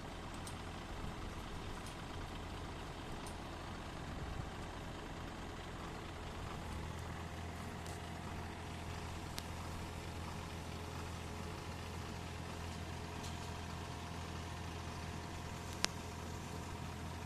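Yanmar mini excavator's diesel engine running steadily as the machine is worked, with one sharp metallic click near the end.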